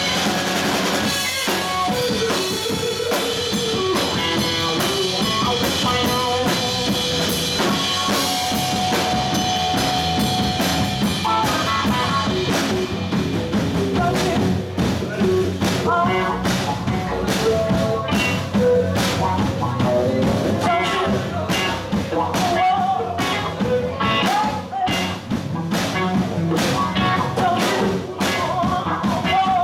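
Live blues-rock band playing, with electric guitar, electric bass and drum kit, and a woman singing. The drum hits come through more strongly from about halfway through.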